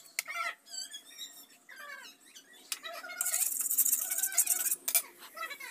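Hot oil sizzling in a frying pan for about a second and a half around the middle, with a few sharp clicks. High, wavering animal calls sound throughout.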